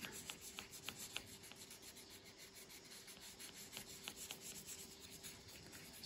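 Side of an oil pastel stick rubbed back and forth over paper, a faint scratchy rubbing made of short strokes a few times a second.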